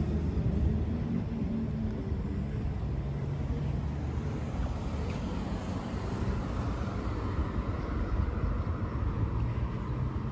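Steady street traffic: vehicle engines running with a low hum and tyre noise, with no sharp events.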